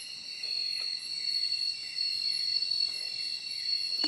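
Night insect chorus of crickets and similar insects: a steady, many-voiced, high-pitched shrill that never lets up. A brief click near the end.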